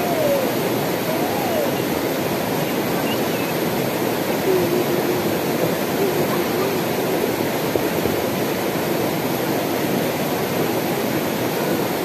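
Shallow, rocky mountain river rushing over stones in a steady, even wash of water.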